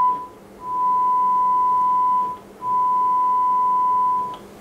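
Sine-wave test tone of about 1 kHz played through the repaired Sanyo DCX 3300KB amplifier, steady with faint overtones, cutting out briefly twice as a front-panel knob is turned. A faint hum lies beneath it.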